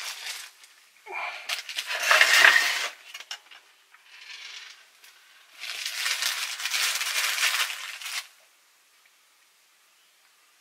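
Small plastic bag crinkling and rustling as spare rubber drive belts are rummaged through and taken out, in two spells: about a second in, and again around six seconds in.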